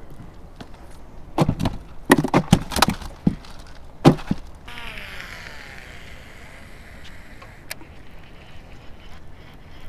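Clatter and knocks of fishing gear being handled on wooden planks, with one sharp knock about four seconds in. Then a cast with a baitcasting reel: the spool whirs as line pays out, falling in pitch as it slows over a few seconds, ended by a single click.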